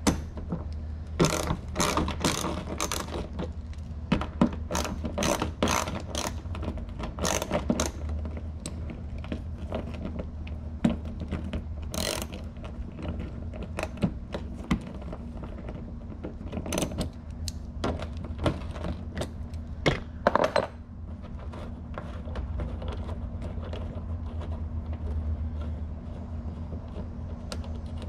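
Irregular clicks, snaps and rattles of plastic push clips and a car's plastic fender liner being pried and worked loose by hand, mostly in the first two-thirds, over a steady low hum.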